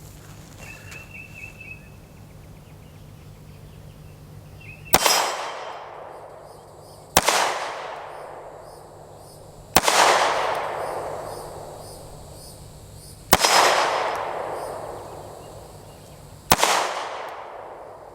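Five single shots from a Canik TP9 Elite SC 9mm pistol, fired slowly two to three and a half seconds apart. Each report echoes and dies away over about two seconds. The first shot comes about five seconds in.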